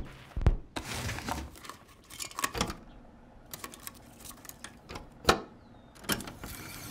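Irregular clicks and knocks in small clusters, with quieter stretches between; the loudest is a single sharp knock a little over five seconds in.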